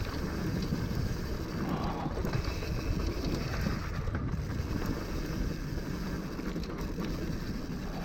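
Wind rushing over a helmet chin-mounted camera's microphone as a hardtail mountain bike rolls over a dry, rough dirt trail, the tyres and frame chattering.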